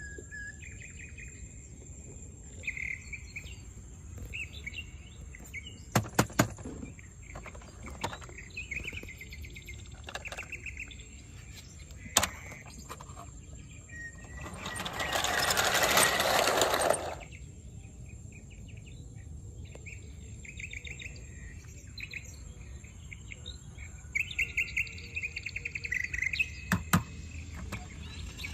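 Small birds chirping in repeated short trills, with a few sharp clicks and a faint steady high whine. About halfway through, a loud rushing noise lasts two to three seconds, the loudest sound of the stretch.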